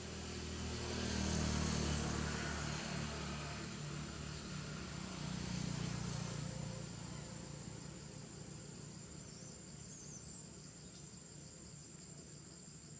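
A steady high insect drone, under a low engine rumble that swells twice and then fades away.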